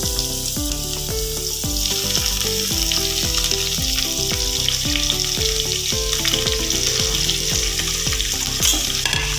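Thoothuvalai leaves with onion and chillies sautéing in hot oil in a pan: a steady frying sizzle. Background music with a steady beat plays over it.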